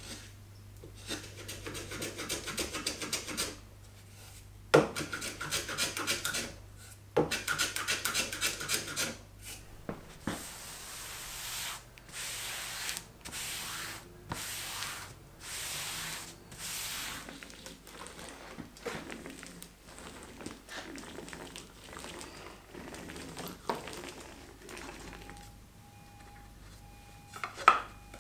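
A hand tool scraped in quick strokes along a wooden edge, in three runs. Then come half-second rasping sweeps as a hand smooths fabric flat on a board, softer scuffs, and a sharp knock near the end.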